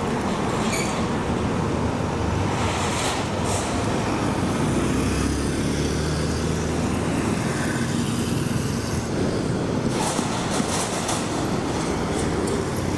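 City street traffic: a steady wash of passing vehicle engines and tyre noise, with one engine louder in the middle.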